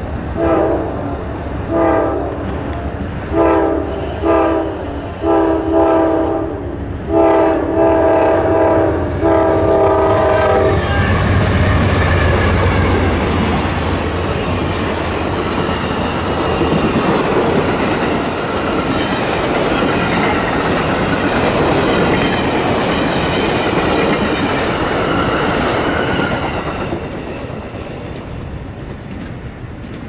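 Amtrak P42DC diesel locomotive's air horn sounding a string of short blasts, the last ones longer, as a horn show. Then the passenger train passes close by with a loud rumble of engine and wheels on the rails, which drops away about 27 seconds in as the last car clears.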